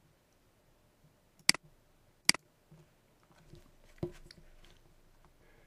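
Two sharp computer mouse clicks about a second apart, then a softer knock about four seconds in.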